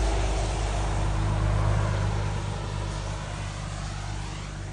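A vehicle engine idling: a steady low hum that grows gradually fainter.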